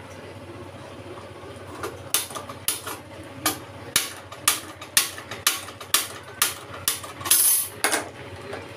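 Handheld spark gas lighter clicked again and again at a gas stove burner, about two sharp clicks a second for some six seconds, with a short rushing burst near the end.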